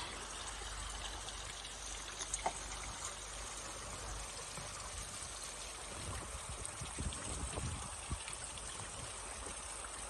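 Water trickling and running steadily beneath the ice of a partly frozen waterfall, with a few faint ticks along the way.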